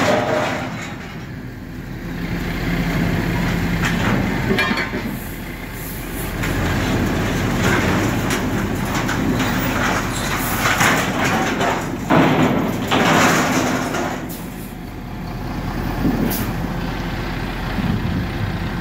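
Hook-lift truck's engine running as its hydraulic arm raises and tips a scrap-metal bin. Several louder noisy bursts of scrap sliding and clattering out of the bin come through over the engine, the biggest about two thirds of the way through.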